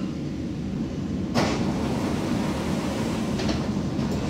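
Interior of an Alstom Citadis 302 tram at a stop: a steady low hum from the tram, with a sudden hiss about a second and a half in as the passenger doors close, a fainter one a little later, and another sharp hiss right at the end.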